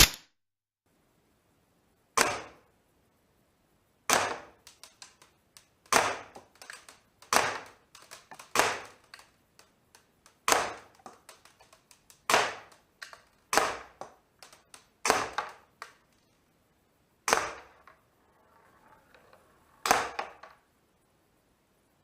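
KWC P226 full-metal CO2 blowback airsoft pistol firing single shots, about a dozen sharp cracks spaced one and a half to two and a half seconds apart. Most shots are followed by a few faint clicks.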